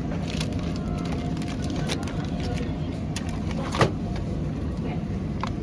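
Steady low rumble, like a car moving, with scattered light clicks and one sharper knock a little before the end.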